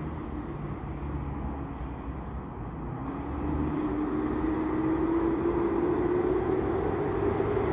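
Double-stack intermodal freight train rolling slowly past, its wheels on the rails making a steady low rumble. About three seconds in, the sound gets louder and a tone joins it that rises slowly in pitch.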